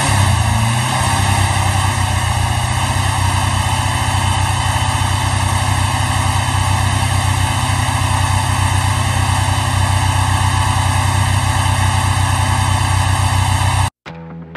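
Freshly built air-cooled VW Type 1 stroker flat-four running on an engine stand. Its revs swing up and down in the first second, then hold steady at a raised speed to break in the new cam. It cuts off suddenly near the end.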